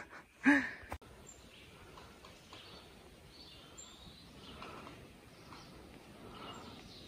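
A woman's voice briefly in the first second, then quiet woodland ambience: a faint steady hiss with birds singing faintly.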